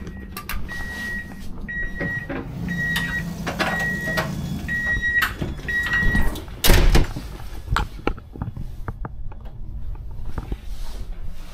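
A high electronic warning beep repeating about once a second, which stops about six seconds in. A loud clunk follows about a second later, then scattered clicks and knocks over a low hum.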